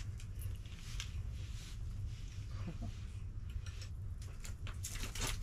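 Small spinning reel on an ice fishing rod being cranked to bring up a big fish hooked through the ice: faint irregular ticking and rasping from the reel, over a steady low rumble.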